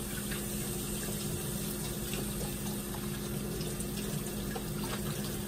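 Crab cakes frying in hot oil in a pan: a steady sizzle with small crackles, over a steady low hum.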